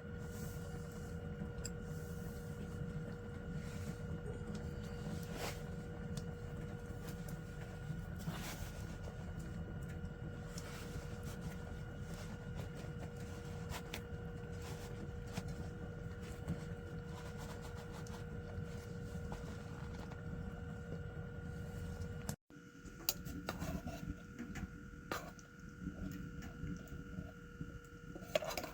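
Wood stove fire burning, with scattered crackles and pops over a steady low rumble and hum; after a cut about 22 seconds in, the crackling is sharper and more irregular.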